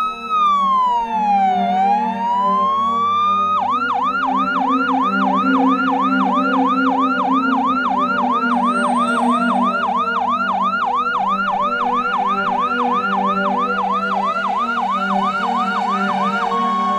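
Electronic siren: a slow wail rising and falling, then, about three and a half seconds in, switching to a fast yelp of about two and a half sweeps a second, over steady low tones.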